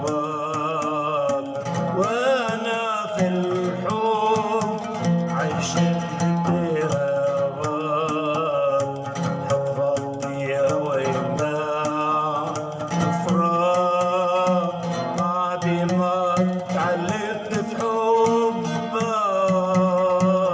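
Arabic song backing music between sung lines: a melody with vibrato over plucked strings and a dense percussion beat.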